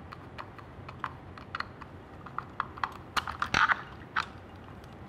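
Small irregular clicks and scrapes of a small screwdriver working the screw terminals of a robot's motor controller, as the power wires are loosened and pulled free. A cluster of louder clicks comes about three and a half seconds in.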